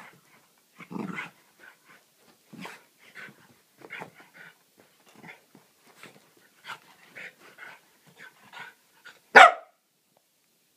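Cavalier King Charles spaniel growling and yapping in a string of short sounds as it plays at a toy, with one much louder bark about nine seconds in.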